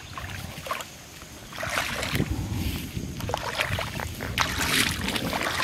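Shallow water splashing and sloshing as a person wades barefoot through flooded grass, in irregular bursts that get louder from about a second and a half in.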